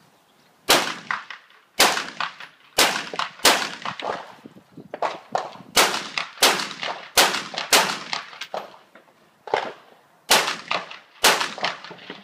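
A competition rifle fired in a string of about a dozen shots at roughly one a second, pausing briefly twice, each shot followed by fainter sharp echoes.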